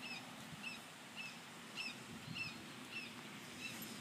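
A bird chirping repeatedly: short, high, hooked notes about twice a second, faint against a quiet outdoor background.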